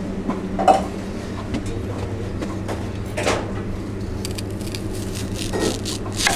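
Kitchen work noise: a knife cutting a small white onion on a plastic cutting board, with scattered knocks and clatters of utensils and dishes, over a steady low hum.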